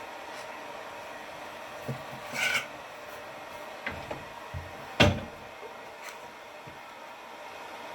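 Scattered light knocks and a short rubbing rasp from objects being handled, with one sharp knock about five seconds in, over a steady hiss.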